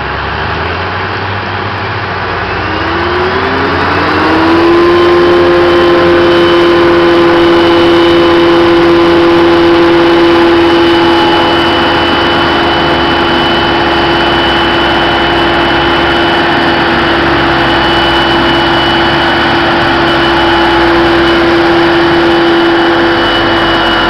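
Heavy diesel farm machinery running in a maize silage harvest. About three seconds in, a whine climbs in pitch as the machinery runs up to speed, then holds steady at full revs.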